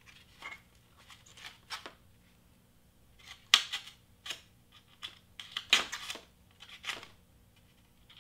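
Craft knife blade cutting foam board by hand: irregular short scratchy rasps, the two loudest about three and a half and six seconds in.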